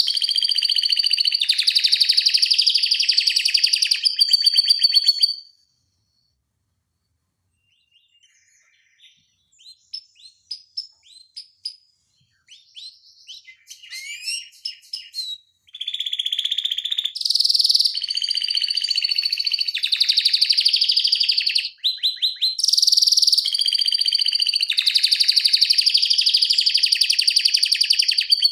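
Domestic canary singing long, rapid rolling trills. The song breaks off after about five seconds, a few soft scattered chirps follow, and the loud fast trills resume about sixteen seconds in and run to the end.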